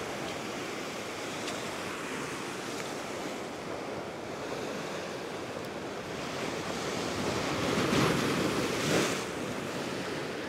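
Ocean swell breaking and washing over a rock shelf, a steady rush of surf that swells louder as a bigger wave comes in about eight to nine seconds in.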